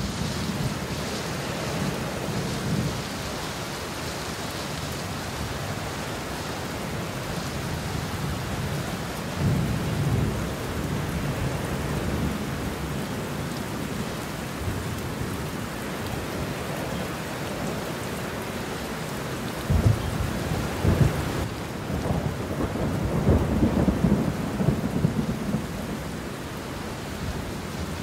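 Wind buffeting the microphone: a steady rushing noise with heavier low rumbling gusts about ten seconds in and again from about twenty seconds in.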